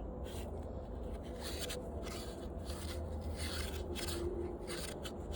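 Irregular rubbing and scraping strokes from parts of an old washing machine being handled, over a steady low rumble.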